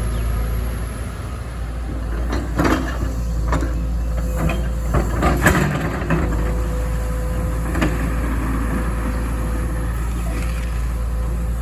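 Excavator diesel engine running steadily with a steady whine over it, and a run of knocks and clatter about two to six seconds in, with one more knock near eight seconds, as the machine works loading material.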